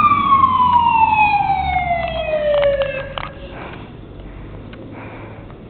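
Fire engine siren winding down in one long falling wail that fades out about three seconds in, leaving a low rumble.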